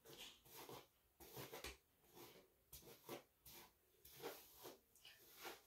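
Hairbrush dragged through long hair in repeated strokes: faint, short scratchy swishes about twice a second.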